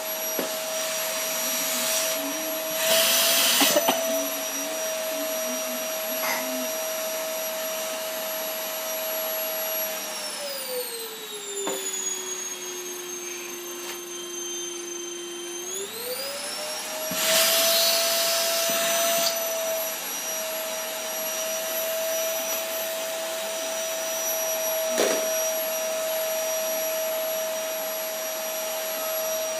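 Vacuum cleaner running with a steady motor whine. About ten seconds in, the whine slides down in pitch, holds low for a few seconds, then climbs back up. There are brief louder rushes of noise about three seconds in and again around seventeen seconds.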